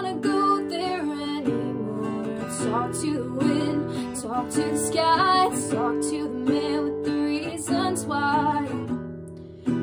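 A woman singing to her own strummed acoustic guitar, with a short lull near the end before the next strum.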